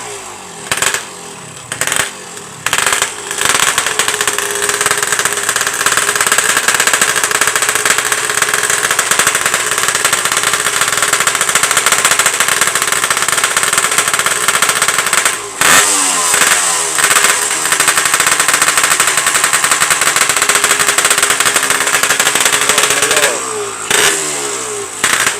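Yamaha RX-King's two-stroke single-cylinder engine revving through a hollowed-out (bobokan) exhaust with the baffling removed, giving a wet, snoring note. Short throttle blips at first, then the revs are held high for about twelve seconds. About halfway the revs drop, come back with a few quick blips and are held again, then fall away near the end.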